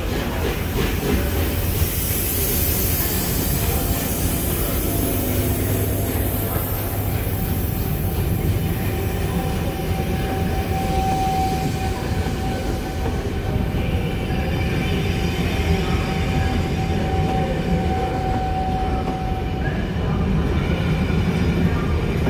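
Coaches of a steam-hauled passenger train rolling past close by on curved track: a steady rumble of wheels on rail, with a thin wheel squeal held for about ten seconds in the middle.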